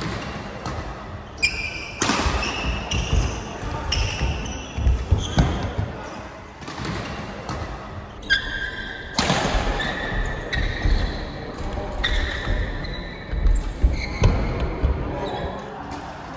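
Badminton rally in a large hall: rackets striking the shuttlecock, sneakers squeaking on the court floor in short high squeals, and thudding footfalls.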